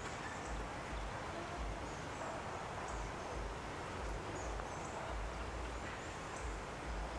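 Outdoor ambience: a steady hiss with wind buffeting the microphone in low, uneven rumbles, and faint, short high-pitched bird chirps every second or so.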